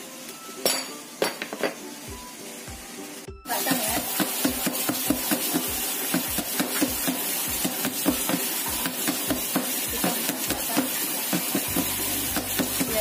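A round metal cake pan full of batter rapped again and again on a plastic cutting board, about three knocks a second, starting about three and a half seconds in. Before that, a few light clicks as the last batter goes from the bowl into the pan.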